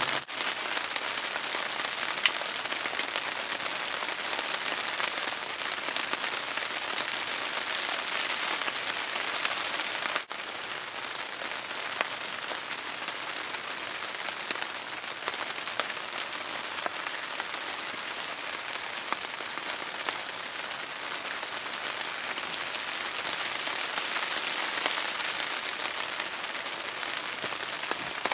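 Steady rain falling, an even hiss with a few small clicks, one sharper click about two seconds in and a brief break about ten seconds in.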